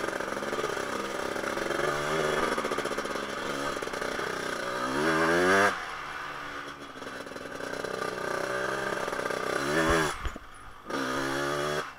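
Two-stroke single-cylinder engine of a 1988 Honda TRX250R ATV, newly fitted and on its first ride, running under way. The revs climb sharply to a peak about five and a half seconds in and fall away off the throttle; near the end it revs up again, drops out briefly, and picks back up.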